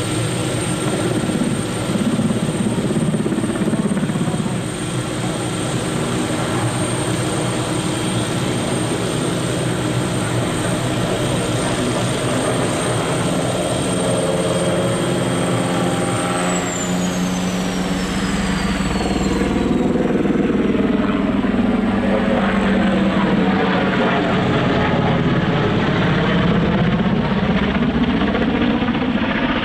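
NH90 military helicopter in display flight: its twin turbine engines whine over the steady beat of the rotor. About halfway through, the high turbine whine drops steadily in pitch as the helicopter passes, and the rotor noise then grows slightly louder.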